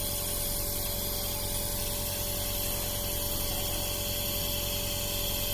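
Nebulizer compressor running steadily: an even hum and hiss of the medicine mist with a constant mid-pitched tone, delivering inhaled medicine to loosen phlegm from a cough.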